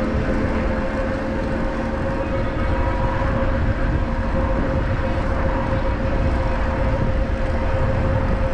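Wind buffeting the microphone of a moving e-bike, with the electric motor's steady whine running underneath.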